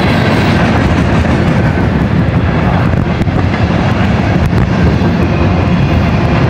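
Fast freight train's cars rolling past close by: a loud, steady rumble of steel wheels on rail, with a few sharp clicks around the middle.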